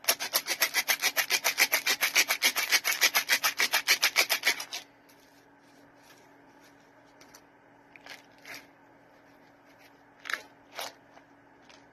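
A small plastic jug of powdered bubble gum shaken hard, a rapid rattling swish of about eight strokes a second that stops after nearly five seconds. A few faint short scuffs follow near the end.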